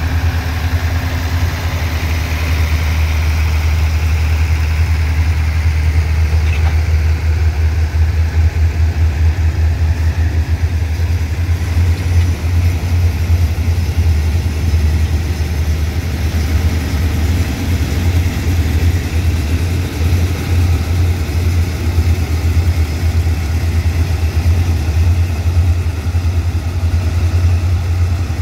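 Diesel-electric locomotive engine idling with a steady, deep rumble.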